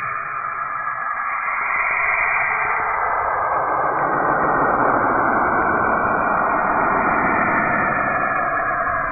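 A planet's "sound" from spacecraft data turned into audio: a dense, rushing hiss with no clear tune, growing fuller and deeper from about three seconds in.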